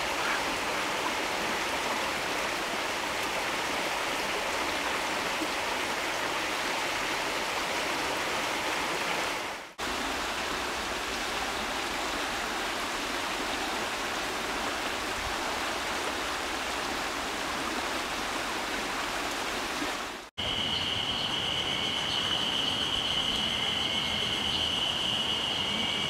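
Clear mountain stream water flowing over moss and stones: a steady rushing, broken by two brief dropouts about ten and twenty seconds in. After the second dropout a steady high-pitched tone sounds above the water.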